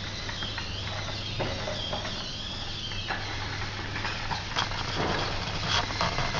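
Small 3D-printed tracked robot crawling over a pile of books. Its drive motors whine, the pitch wavering up and down for the first three seconds, over a steady low hum, with scattered clicks and knocks from the printed tracks against the books.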